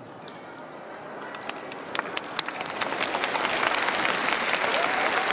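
Audience applauding at the end of a drum performance. The clapping starts sparse about two seconds in and swells, and a voice calls out near the end.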